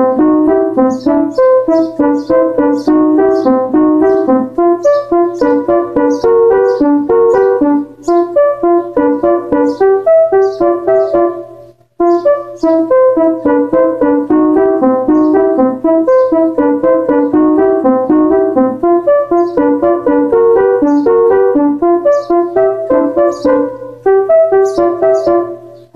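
Electronic keyboard playing a melody part with one hand, a quick rhythmic run of notes that stops briefly about halfway through and then starts again, over a steady low hum.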